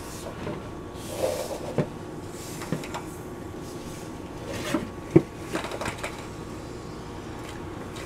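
Scattered clicks and knocks of a garden hose coupling being tightened onto a water heater's plastic drain valve and the valve being turned, with a sharper knock about five seconds in.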